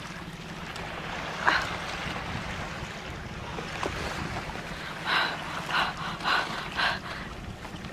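Water slapping and lapping against a small boat's hull, with wind on the microphone over a steady low hum. There is one splash about a second and a half in, then four quick splashes near the end.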